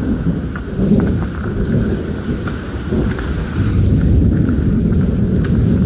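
Heavy thunderstorm rain with a low rumble underneath that swells and eases, and scattered sharp taps of drops.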